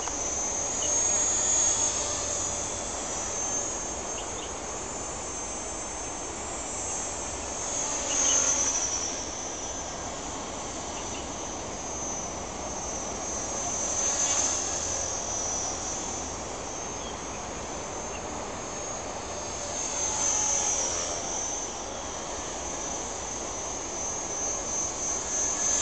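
Esky King 2 model helicopter flying, its electric motor and rotors giving a steady high whine. The whine swells and fades about every six seconds as the helicopter circles past.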